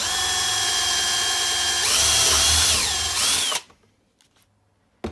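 Electric drill with a 20 mm step drill bit boring a hole in the switch box: a steady motor whine, with the cutting noise growing louder about two seconds in, then the motor winds down and stops about three and a half seconds in. A single sharp click near the end.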